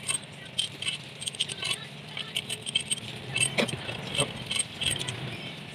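Metal hand tools and engine parts clinking and rattling against each other in irregular short clicks, with a few heavier knocks in the middle.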